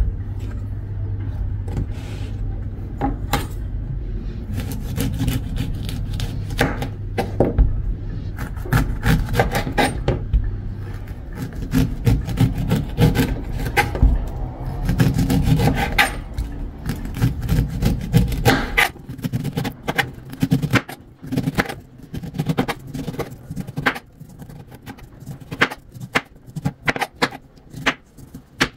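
Food-preparation sounds: repeated scraping and rasping with sharp knocks, over a steady low hum that stops about two-thirds of the way through.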